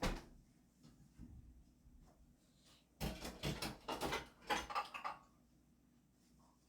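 A single thump, then about two seconds of rapid knocking and clattering from household handling, such as cupboard doors and dishes being moved.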